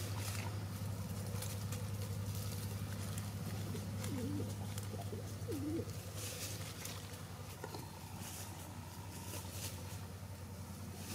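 A few soft, low, coo-like bird calls, a small cluster about four to six seconds in, over a steady low hum and faint rustling.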